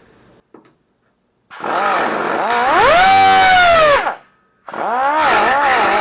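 Cutoff wheel cutting sheet-steel patch metal, trimming the piece to fit. The whine starts about a second and a half in, its pitch dipping and recovering as the wheel bites. It stops briefly around four seconds, then starts again.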